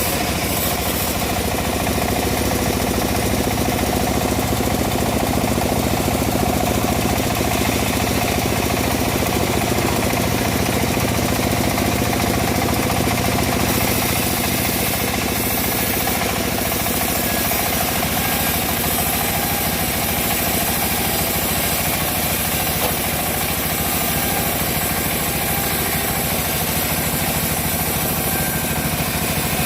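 Engine of a homemade bandsaw mill running steadily at an even speed.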